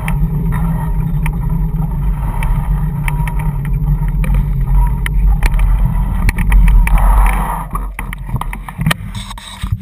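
Dog scooter rolling fast on a tarmac path behind a pulling dog: a steady low rumble from the wheels and wind on the camera, with frequent sharp rattling clicks. It dies down near the end as the scooter slows.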